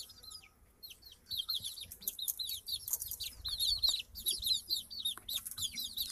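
Young chickens peeping: a flock of chicks giving many short, high, falling peeps that overlap one another, thinner for the first second or so and then crowding together.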